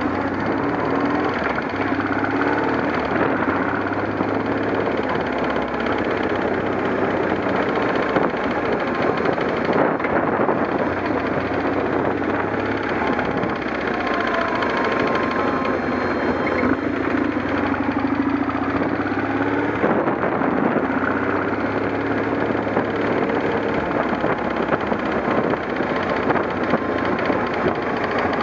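Motorcycle engine running as the bike is ridden, its note rising and falling with the throttle.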